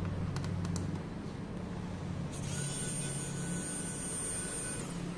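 Electric precision screwdriver whirring as it backs out a laptop back-panel screw: a high, steady whine starts about two seconds in and cuts off near the end, over a low steady hum, with a few light clicks near the start.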